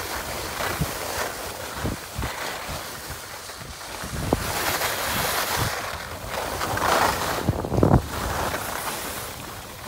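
Skiing noise: wind buffeting the microphone over the hiss and scrape of skis sliding on a groomed slope, with louder scraping about seven to eight seconds in.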